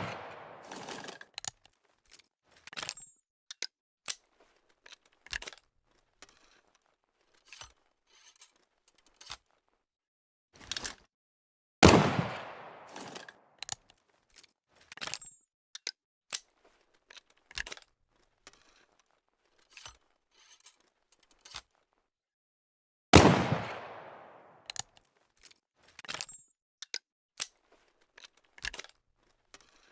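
Flintlock pistol shots: two sharp reports about eleven seconds apart, each trailing off over a second or two, with the tail of an earlier shot fading at the start. Many short clicks and scrapes come between the shots.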